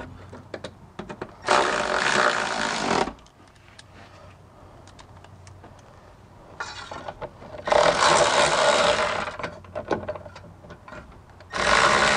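Power ratchet running down heat shield bolts in three short runs, each about one and a half to two seconds long.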